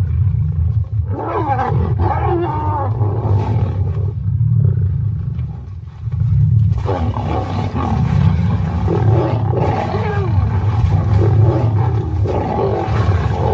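Lions fighting: deep growling runs throughout, with higher, wavering snarls and yowls over it, as a lioness is mauled by rival lions. The fighting drops off briefly about six seconds in, then picks up again.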